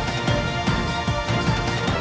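News-channel intro theme music with a steady drum beat under sustained synthesizer tones.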